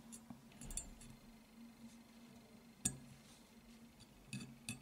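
Small steel pistol parts clicking lightly against the frame as a sear is worked into line with its pin hole. There are a few light clinks in the first second, one sharper click a little before halfway, and a quick cluster near the end.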